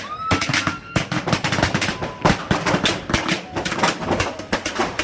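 Firecrackers going off at the New Year: a dense, irregular run of sharp bangs and crackles, several a second, with a short whistle in the first second.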